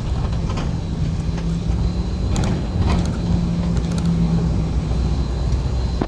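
Car running at road speed, heard from inside the cabin: a steady low rumble of engine and tyres with a humming tone and a few light rattles.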